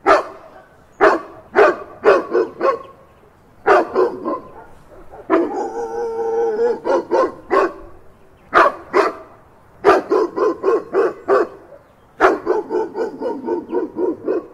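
A dog barking in quick runs of several barks with short pauses between them. About five seconds in, a longer drawn-out howl is followed by more barks.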